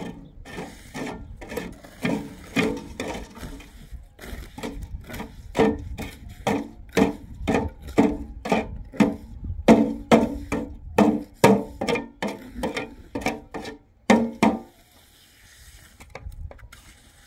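Rhythmic scraping and knocking strokes of a hand tool working cement mortar, about two a second, each with a brief ring; they stop near the end.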